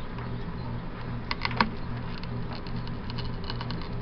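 Soldering iron held on a Flexwatt heat tape's crimped terminal, melting rosin-core solder: faint scattered clicks and ticks, in a cluster about a second in and again near the end, over a steady low hum.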